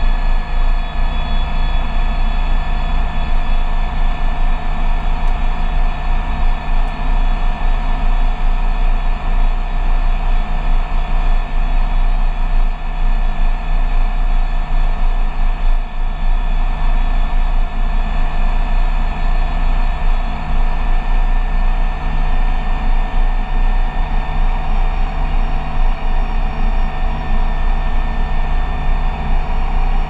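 John Deere 3420 telehandler's diesel engine running steadily at a constant speed, with a loud, even drone and a steady whine above it.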